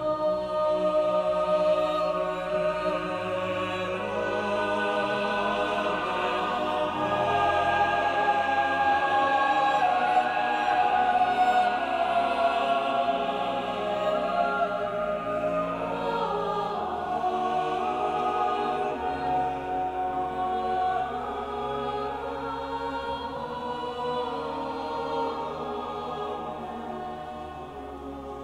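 Mixed choir of men's and women's voices singing a slow piece of sacred music in long held notes, swelling in the middle and growing softer near the end.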